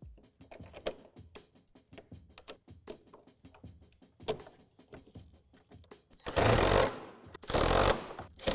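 Faint clicks and knocks of plastic panels and bolts being handled, then about six seconds in a cordless power driver runs in two short bursts, driving bolts that join the plastic wall panels.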